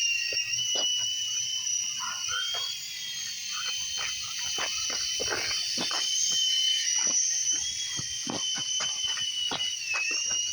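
Small toy remote-control helicopter's electric motor and rotor running with a high-pitched whine whose pitch wavers slightly with the throttle, dipping briefly near the end. Light clicks and taps are scattered through it.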